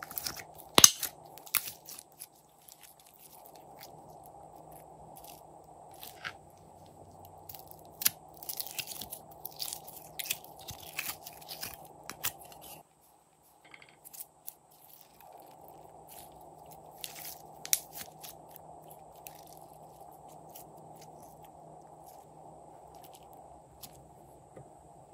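Glossy glitter slime squeezed and pressed by hand, giving sharp crackling clicks and pops as air pockets in it burst. The clicks come in clusters, the densest about a second in, again from about eight to twelve seconds in, and around seventeen seconds in, over a faint steady hiss.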